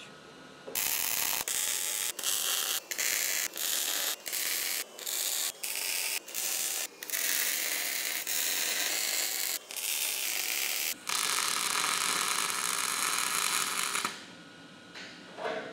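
Wire-feed (MIG) welder arc crackling and hissing as studs are welded onto a steel beam. It comes as a rapid series of short welds, each stopping and restarting within a second or so, then a longer run of a few seconds near the end.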